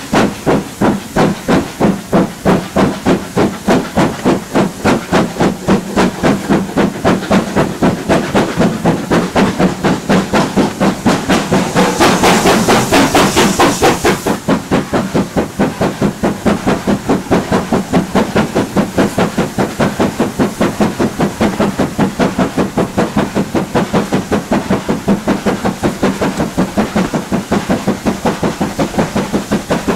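Exhaust beats of BR Standard Class 7 'Britannia' Pacific 70013, a two-cylinder steam locomotive, working a train: a fast, even rhythm of chuffs. About twelve seconds in, a burst of steam hiss lasting about two seconds sounds over the beats.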